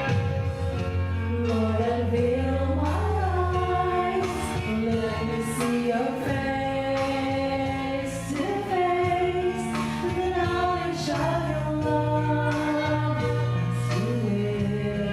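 Several women singing a slow worship song together into microphones, with held notes that glide between pitches, over an instrumental accompaniment with sustained bass notes.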